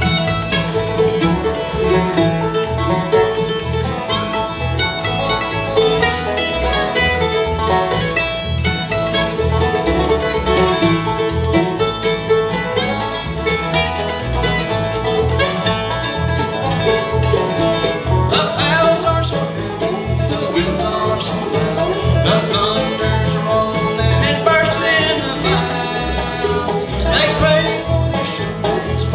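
Acoustic bluegrass band playing: guitar, upright bass, mandolin, banjo and fiddle together.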